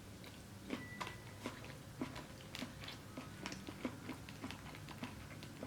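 Close-miked chewing: a run of small, irregular mouth clicks and smacks, a few a second, fairly faint.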